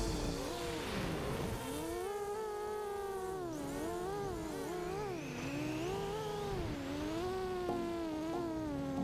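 FPV racing quadcopter motors whining, the pitch rising and falling constantly with the throttle.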